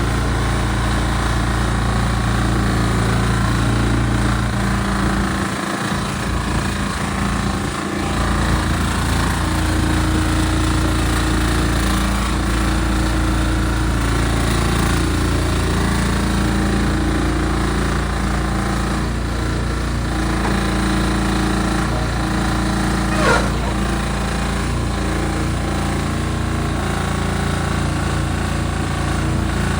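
JPC KV12 excavator's engine running steadily. The low rumble dips briefly about six to eight seconds in, and there is a short rising squeak around twenty-three seconds in.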